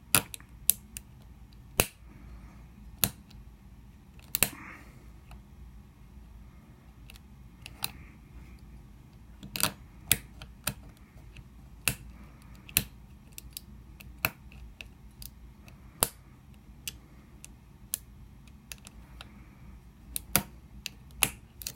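Irregular small metal clicks of a lock pick and tension tool working inside a cheap bike lock's keyway, with some sharper clicks among them.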